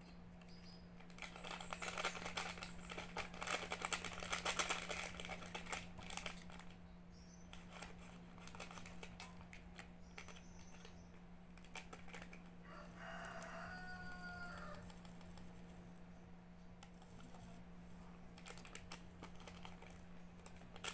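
A small packet is handled and opened, crinkling and crackling, loudest in the first few seconds. About 13 seconds in, a rooster crows once in the background, and a steady low hum runs underneath.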